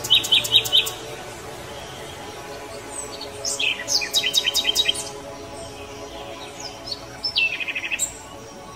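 Bird chirping in three short bursts of rapid trills, near the start, in the middle and near the end, over soft background music with steady held tones.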